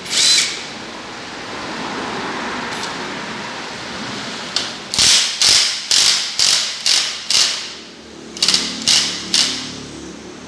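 Cordless impact wrench hammering in short trigger pulses on the centre nut of a CVT clutch and pulley assembly, loosening it. One burst comes at the start, then a quick series of short bursts about half a second apart from halfway through, with a pause and three more near the end.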